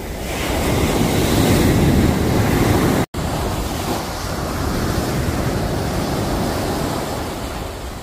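Sea waves washing up a sandy beach: the surf rushes in and swells over the first few seconds, breaks off for an instant about three seconds in, then swells and ebbs again.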